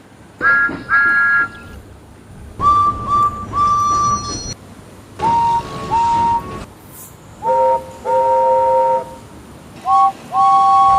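Toy train whistle toots, one group after another: pairs of short-then-longer toots plus one run of three, each group at a different pitch, with short pauses between.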